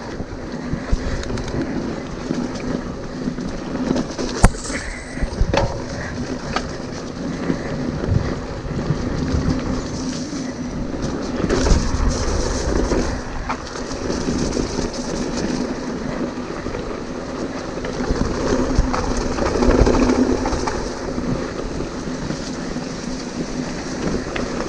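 Hardtail mountain bike running fast down a rough dirt trail: tyres rolling over dirt and the bike rattling over bumps, with wind on the microphone. Two louder, rougher stretches.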